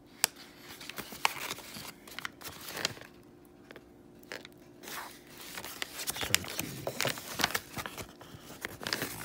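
Paper sandwich bag crinkling and rustling as it is handled, in irregular bursts with several sharp crackles.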